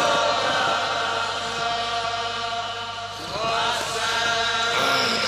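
Drawn-out devotional chanting in long held notes, amplified through a microphone. A new phrase rises in pitch about three and a half seconds in.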